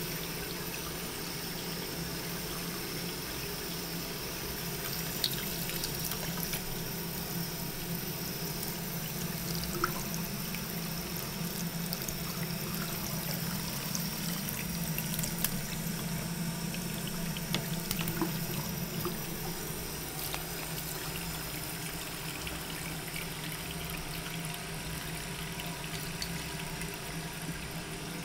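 Bathroom faucet running a thin stream into the sink basin, a steady splashing with a few faint clicks along the way.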